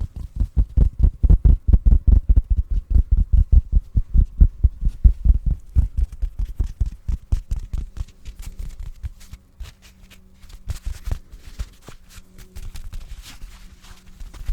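A pillow patted rapidly close to the microphone, low muffled thumps about five or six a second, easing after about seven seconds into softer, sparser taps.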